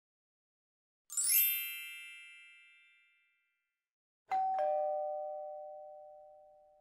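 Added chime sound effects. About a second in, a bright sparkling chime flourish rings out and fades. A little past four seconds, a two-note falling ding-dong chime, like a doorbell, rings on and slowly decays.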